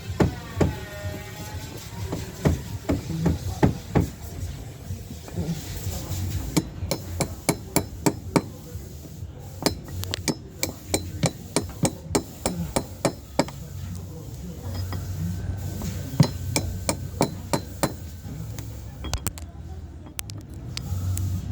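Repeated sharp hammer blows on a metal caulking tool, working the seams of a wooden boat's planking. The strikes come in an irregular run, often about two a second, with some metallic ringing.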